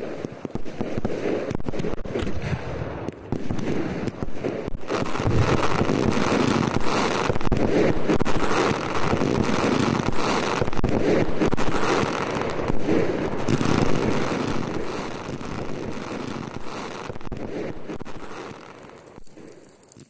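Fireworks and firecrackers going off in quick succession, a dense run of cracks and bangs that fades away over the last few seconds.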